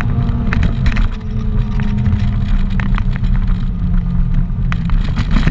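Cabin sound of a 2006 Acura RSX Type-S's 2.0-litre four-cylinder with an Invidia Q300 exhaust and an AEM cold air intake, running on the road. The engine note holds fairly steady and eases slightly lower, with a few light clicks.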